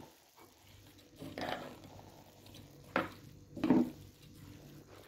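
A metal spoon stirring wet rice and masala in an aluminium pressure cooker: three short scrapes and clatters against the pot, about a second and a half in, at three seconds and again just before four seconds.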